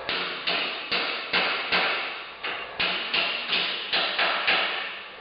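About a dozen hammer blows on a metal shelving unit, two to three a second, each with a short ringing decay, knocking a shelf up into the next notch.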